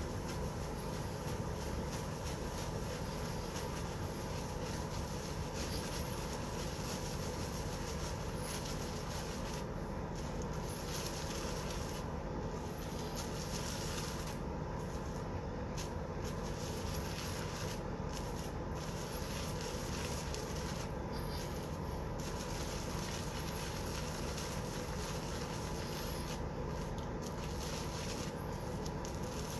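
Steady low rumble and hiss of background noise, unchanging throughout, with no distinct events.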